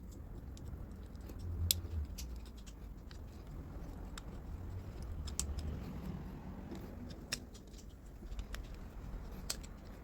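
Irregular sharp clicks and small scrapes, as of hand tools working the metal body of a die-cast toy car, over a low rumble.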